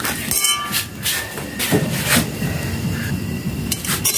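Metal spoon stirring popcorn in an aluminium pot: repeated scrapes and clinks of the spoon against the metal, over a steady low rumble.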